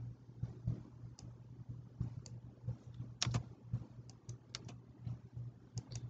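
Computer mouse button clicking, single clicks and quick double clicks at irregular intervals, the loudest double click a little after the midpoint, over a steady low hum.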